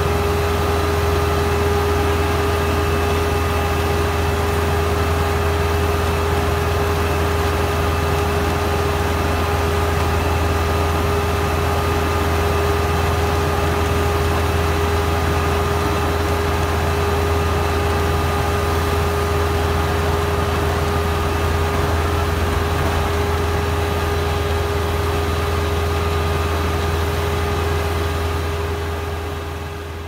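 Massey Ferguson 385's four-cylinder diesel engine running at steady working speed under load, powering a tractor-drawn potato digger, with a constant whine over the engine note. The sound fades out near the end.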